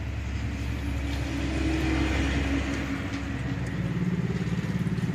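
2012 Mazda CX-5 engine idling steadily with a low hum, its pitch shifting slightly a little past halfway, while engine flush circulates in its crankcase.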